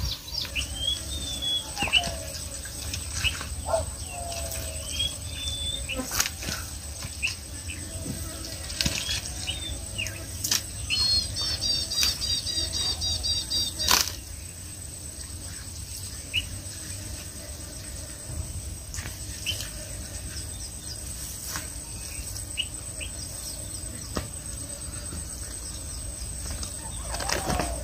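Birds chirping in short gliding calls, with a quick run of repeated calls midway, over a steady high thin whine and a few sharp clicks and rustles of handling.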